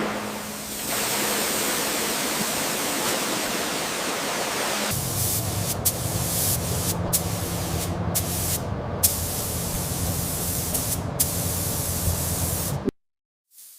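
Compressed-air paint spray gun hissing steadily as paint is sprayed. Several brief breaks in the hiss come as the trigger is let off, and a low hum runs underneath. The sound cuts off abruptly near the end.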